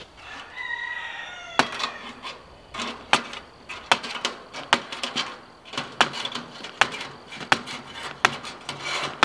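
Chicken wire being cut strand by strand against a wooden door frame: a run of sharp snaps, about one every two-thirds of a second, with a blade scraping along the wood between them. A falling pitched call, about a second long, is heard near the start.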